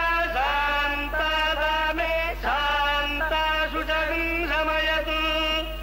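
A voice chanting a Sanskrit mantra in long held notes that glide from one pitch to the next, over a steady low hum.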